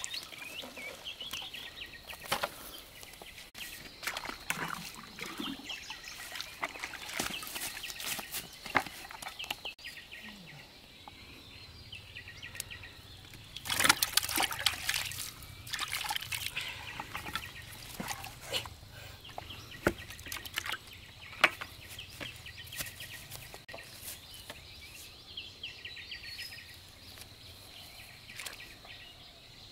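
Water splashing and sloshing in irregular bursts, heaviest about 14 seconds in, with birds chirping faintly in the background.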